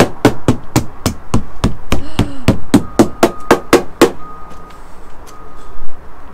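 A small metal hand tool tapping rapidly on the painted plywood hull of a wooden trimaran, sounding it out for rot: sharp knocks about four a second. The tapping stops about four seconds in, leaving a few faint ticks.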